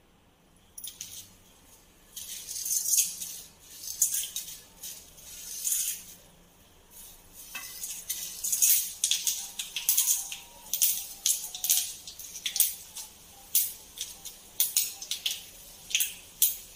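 Tempering spices (chana dal, urad dal, mustard seeds, cumin and a dried red chilli) tipped from a steel plate into oil in a kadhai. A hissing sizzle comes in surges for the first few seconds, then many short, sharp crackles and pops, several a second, as the seeds fry in the hot oil.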